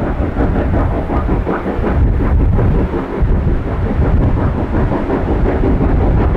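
Norfolk and Western 475, a 4-8-0 Class M steam locomotive, passing under load: a loud, deep rumble packed with rapid exhaust beats.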